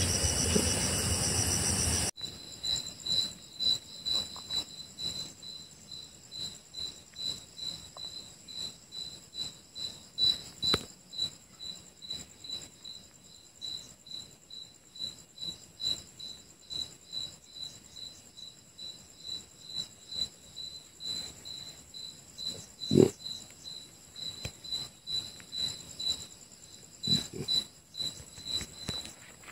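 Night insects, most likely crickets, chirping evenly at about two chirps a second over a faint steady high drone. A loud rustling noise fills the first two seconds and cuts off suddenly, and there is a single soft knock about twenty-three seconds in.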